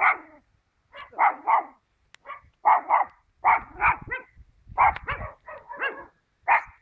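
Dog barking repeatedly, about fifteen barks in quick runs of two or three.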